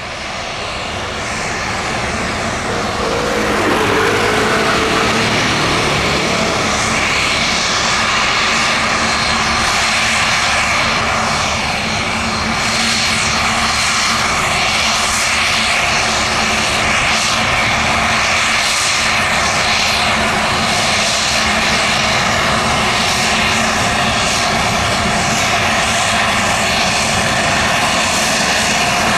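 Fokker 50 turboprop airliner's engines and propellers running loud, growing louder over the first few seconds, then a steady roar with a thin whine.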